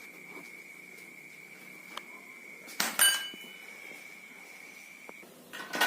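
Hard metal objects knocking together: a light tick, then a sharp clink that rings briefly about three seconds in, and another knock near the end, over a faint steady high whine that cuts off shortly before the last knock.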